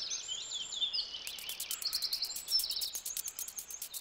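Small birds chirping in quick, high calls. About a second in, a fast, even, high-pitched ticking trill joins them and keeps going.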